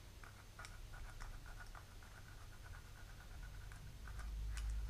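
Small screwdriver scraping the tarnished metal contacts of a Basta bicycle headlight to make them bright again, a quick run of faint scratching strokes. A low rumble builds near the end.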